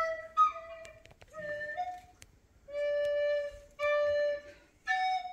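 A slow instrumental melody of single held notes, one after another with short gaps, in a soft woodwind-like tone.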